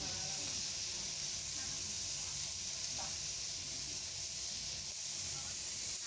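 Squid and mushroom skewers sizzling on a hot flat-top griddle: a steady hiss, with faint voices in the background.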